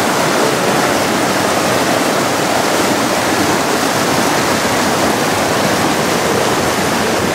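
Steady rush of running water, an even noise with no breaks or distinct events.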